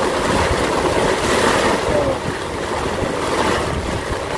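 Heavy rain pouring onto a large umbrella overhead in a steady downpour, with wind gusting on the microphone.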